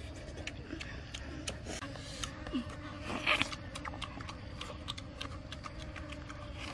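People eating cooked fish with their fingers: repeated wet lip smacks and chewing clicks, with one louder breathy mouth noise a little over three seconds in.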